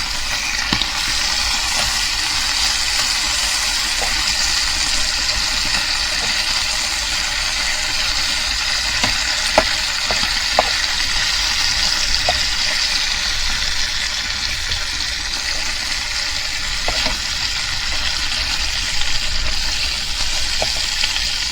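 Bacon sizzling in a frying pan: a steady hiss with scattered small pops and crackles of spitting fat.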